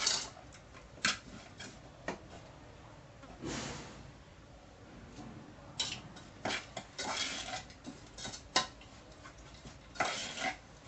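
A metal spoon stirring and scraping a shrimp salad mixture in a metal saucepan, with scattered sharp clinks of the spoon against the pot between rustling scrapes.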